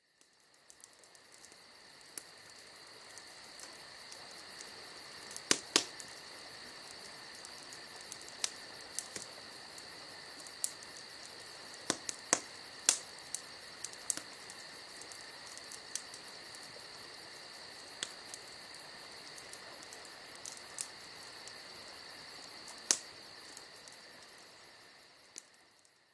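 Crickets chirring steadily in a high, even trill, fading in at the start and out near the end, with a few sharp clicks scattered through it.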